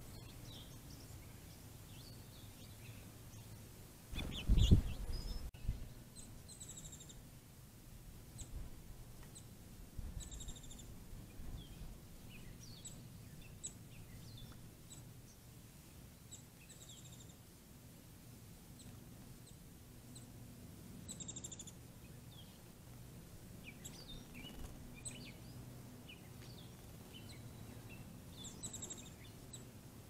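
Songbirds chirping in the background, short high chirps and twitters scattered throughout over a low steady hum. A brief loud thump about four and a half seconds in.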